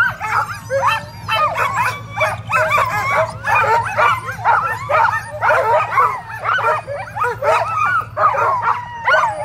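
A team of sled dogs yelping, whining and barking in a dense overlapping chorus, the eager din of dogs held at the start line and keen to run. A steady low hum runs underneath.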